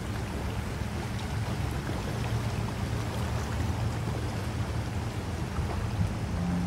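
Steady rush of fast-flowing muddy floodwater, an even noise with a strong low rumble and a few faint ticks of rain.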